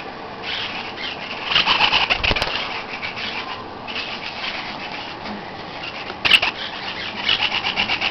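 Lineolated parakeets in a wire cage making several short bursts of rapid, fine pulsing sound, with a sharp click a little over six seconds in.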